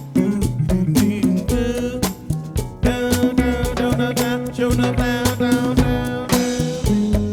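Music with a drum beat and pitched melodic instruments, with a lead melody line entering about three seconds in.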